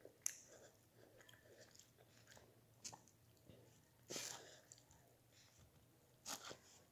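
A child chewing food close to the microphone, with scattered small clicks and short crunchy bursts; the loudest come about four seconds in and again just after six seconds.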